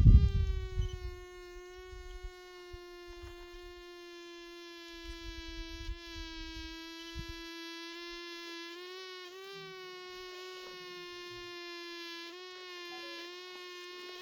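A fly buzzing close to the microphone: one steady droning tone that wavers slightly in pitch now and then. A loud low thump sounds right at the start.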